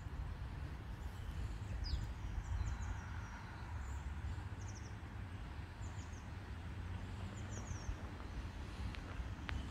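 Outdoor park ambience: small birds giving short high chirps, several in quick runs of three or four notes, over a steady low rumble.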